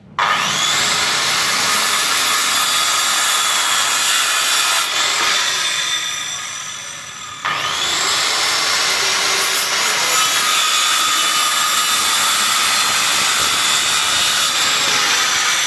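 Power tool cutting wood, a loud steady high-pitched grinding and whirring. It starts suddenly, fades about six seconds in, then starts again abruptly a little past halfway and runs on steadily.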